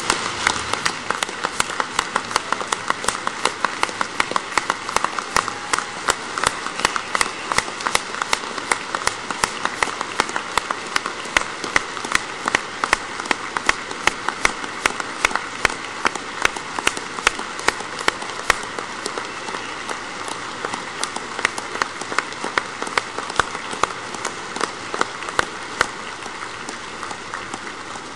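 Large audience applauding, a dense crackle of many hands clapping, with sharper regular claps from one person clapping close to the podium microphone. The applause eases a little near the end.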